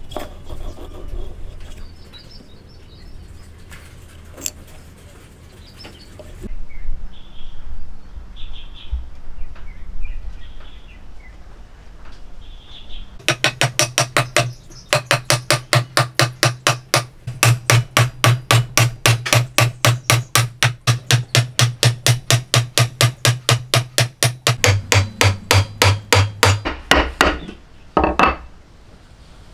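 A hammer striking in a fast, even rhythm of about four blows a second, each a sharp wooden knock with a low ring, driving a dark hardwood dovetail tenon down into its socket in a pale wooden block. Quieter knocks of handling the wood come first; the blows begin about halfway through and stop shortly before the end, with one last blow after them.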